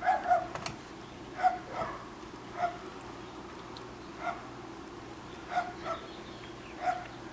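Five-week-old puppy giving short, high-pitched yapping barks, about nine of them at uneven intervals, some in quick pairs.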